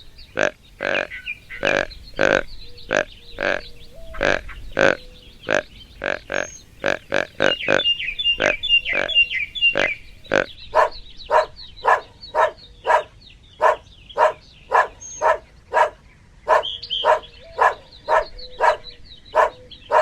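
An animal giving short calls over and over, irregular at first, then very regular at about two a second in the second half, with birds chirping faintly behind.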